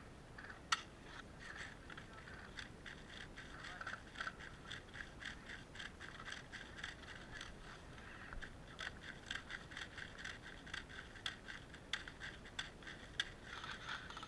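Close rustling and scraping of clothing and gear against a body-worn action camera: a quick, uneven run of soft scuffs, with one sharp click under a second in.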